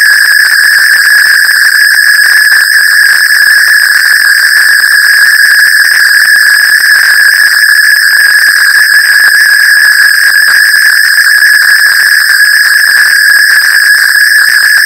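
Loud, harsh electronic glitch sound: one steady high-pitched tone held without change, mixed with crackling static-like noise.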